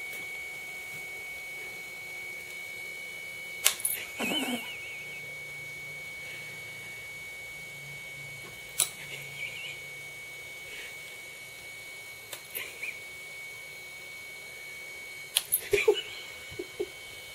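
A cat pawing and swatting at a handheld video camera held up to its face: a few sharp knocks and taps, the busiest cluster near the end, over a thin steady high-pitched whine.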